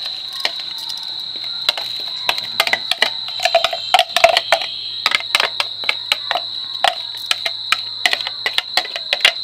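Spoon scraping and tapping against a plastic hand-chopper bowl, knocking chopped chillies and garlic out onto a plate: a quick, irregular run of clicks and taps, over a steady high-pitched whine.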